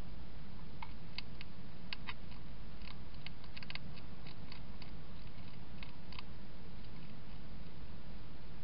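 European hedgehog feeding with its head in a bowl: a run of small, sharp, irregular clicks from its mouth against the food and dish, thickest a few seconds in and thinning out after about six seconds.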